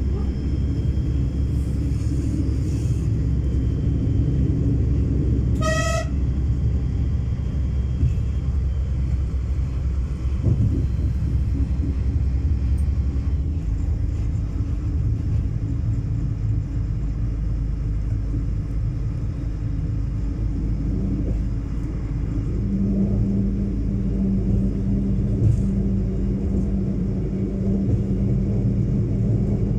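LVT/S diesel railcar running, heard from inside: a steady low rumble of engine and running gear. A short horn toot comes about six seconds in. The engine note changes about halfway through, and a steady low hum sets in near the end.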